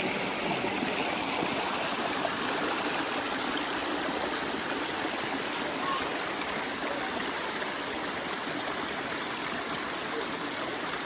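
Steady rush of river water flowing in the shallows below a waterfall, an even, unbroken hiss.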